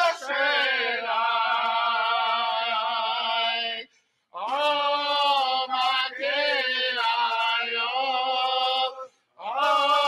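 Singers of a Native American drum group chanting together in long, held notes, breaking off briefly twice, about four and nine seconds in.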